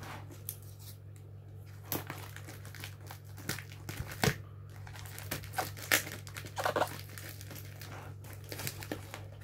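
Small scissors snipping and slicing through packing tape on a cardboard parcel, with irregular snips and the tape and cardboard crackling and tearing.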